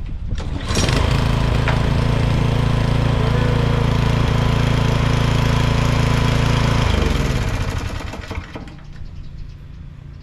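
Toro TimeMaster lawn mower engine starting about a second in, running steadily for about six seconds, then shut off and winding down. It is a test run on freshly installed Helicoil threads that hold the spark plug in the cylinder head.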